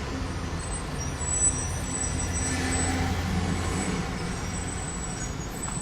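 Steady low rumble of a running vehicle engine, with a few faint high-pitched tones that come and go.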